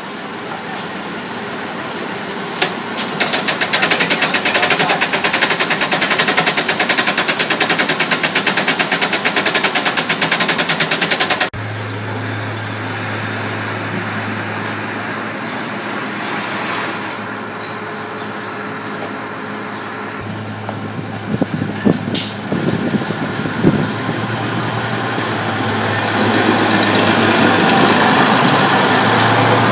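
A fast, even mechanical rattle of many strokes a second that cuts off abruptly. Then an old Ferrovie del Sud Est diesel railcar's engine idling with a steady low hum and a few knocks, growing louder near the end.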